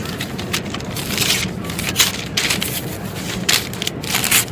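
An old comic book's paper pages being ripped apart by hand, a rapid series of sharp tearing rips.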